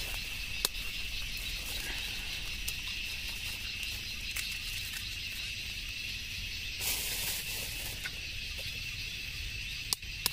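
Steady high-pitched drone of insects, with a few sharp clicks and a short rustle of a plastic bag being handled about seven seconds in. Near the end a sharp tap of a blade on an egg shell as the egg is cracked.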